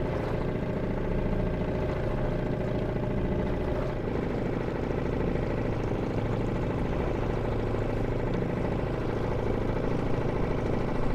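Suzuki 2.5 hp four-stroke outboard running steadily at a slow trolling speed, pushing a small jon boat.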